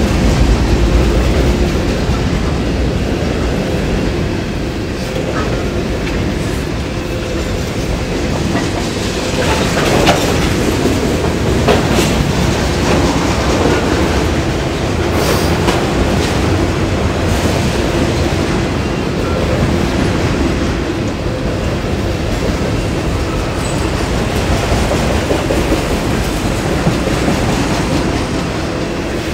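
Empty coal train's cars rolling past, wheels clattering and pounding on the rails as if every wheel had a flat spot, with a few sharper bangs in the middle.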